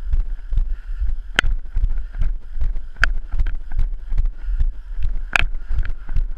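Walking footsteps on a pavement, heard as a steady rhythm of low thuds from a body-worn camera, with wind on the microphone. Three sharp clicks stand out, about a second and a half, three seconds and five and a half seconds in.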